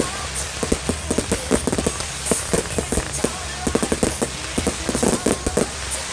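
Fireworks going off in a dense run of rapid, irregular pops and crackles.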